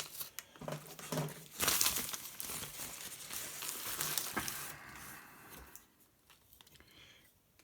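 Packaging wrapping crinkling and tearing as a knife is unwrapped by hand. It is loudest from about two seconds in and dies away after about five seconds.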